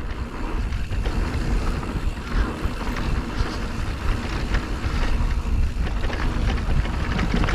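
Electric mountain bike riding a dirt trail: steady wind rush on the microphone over tyre rumble, with light clicks and rattles from the bike.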